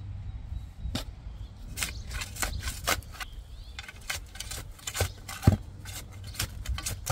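Irregular clicks and scrapes of garden hand tools at work while a lawn edge is laid out and cut, with one louder thud about five and a half seconds in.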